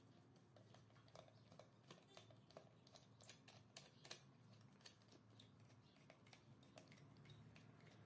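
Faint, irregular small clicks and scrapes of a screwdriver turning a terminal screw while a neutral wire is fitted into a terminal block.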